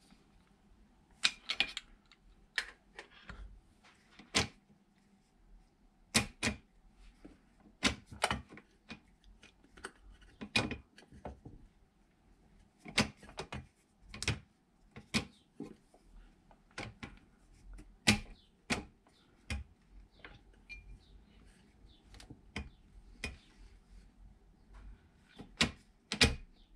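Irregular sharp clicks and knocks of hand tools and small metal parts being handled, about one or two a second, some in quick pairs, during hands-on work on a small outboard engine.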